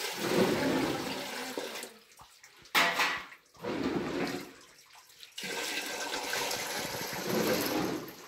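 Water pouring and splashing in four separate bursts with short pauses between them; the second burst, about three seconds in, is brief and starts suddenly.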